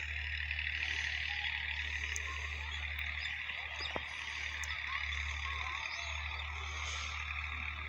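A dense, continuous chorus of calling animals, high-pitched and finely pulsing, with a few short chirps over it and a steady low hum underneath.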